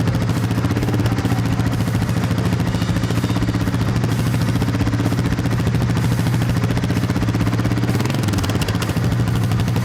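Four-wheeler (ATV) engine running steadily at low speed, its pitch wavering briefly about eight seconds in.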